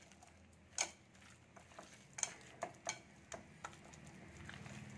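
A hand mixing and rubbing thick masala paste into fish pieces in a ceramic bowl: soft wet squelching broken by a string of short, light clicks and knocks against the bowl, spaced irregularly.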